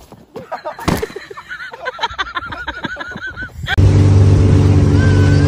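A thump about a second in, followed by a person's voice in quick repeated cries. Near the end, the loudest part: a motorboat's engine running steadily with wind and water rushing past, starting suddenly.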